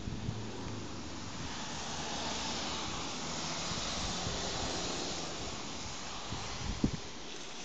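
Child's bicycle tyres hissing through standing water on a flooded, rain-wet path. The hiss swells as the bike rides through and past, then fades. There is a short thump near the end.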